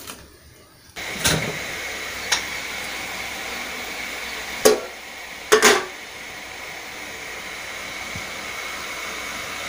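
Steady hiss of a steamer on the boil, starting abruptly about a second in, with a few sharp metallic knocks, the loudest two close together about halfway through.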